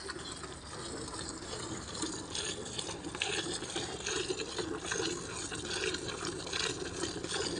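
Buffalo being milked by hand: thick streams of milk squirting into a pail in repeated strokes.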